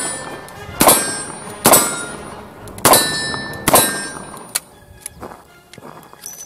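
Ruger GP100 revolver in .44 Special fired four times, about one shot a second, each shot followed by the ring of struck steel targets. After the last shot come only a few light clicks.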